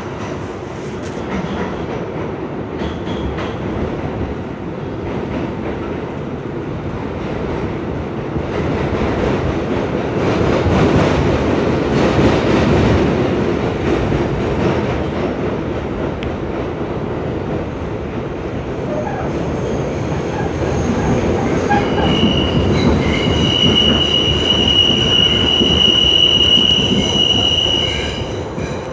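R62A subway train heard from inside the car as it runs through the tunnel: a steady rumble of steel wheels on rail that swells and eases. About two-thirds of the way through, a high-pitched wheel squeal comes in and holds until it cuts off shortly before the end.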